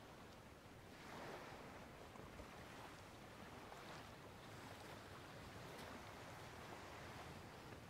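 Near silence: faint beach ambience, a low, even hiss of distant surf and wind that swells gently a few times.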